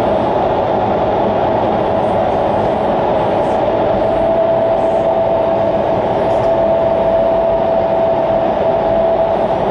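Indoor skydiving vertical wind tunnel running, its high-speed airflow making a loud, steady rushing noise. A steady tone rides on the rush and grows clearer about four seconds in.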